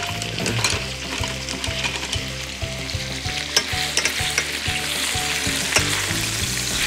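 Chicken breasts sizzling as they brown in hot oil in a stainless steel pan. Through the hiss come sharp clicks and scrapes from a wooden spatula and a fork as the pieces are lifted and turned.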